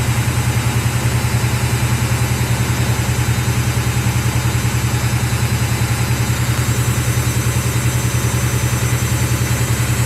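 Front-loading washing machine running: a steady low hum that pulses evenly about seven times a second as the drum turns.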